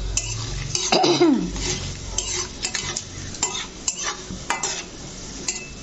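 A metal spatula stirs and scrapes tempering spices (cumin seeds, dried red chillies and dal) frying in hot oil in a metal kadai. The oil sizzles lightly under repeated clicks and scrapes of metal on metal, with a squeaky scrape that falls in pitch about a second in.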